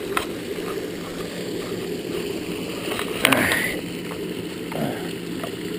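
Steady low outdoor rushing noise with a faint hum. About three seconds in there is a sharp knock and a brief scuffing rustle as someone sits down on a stone pond edge, and a shorter sliding scrape comes near the end.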